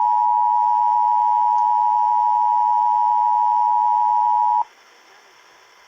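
Emergency Alert System attention signal: a loud, steady two-note alarm tone that cuts off suddenly about four and a half seconds in, leaving a faint hiss. It announces an emergency alert, here a fire warning.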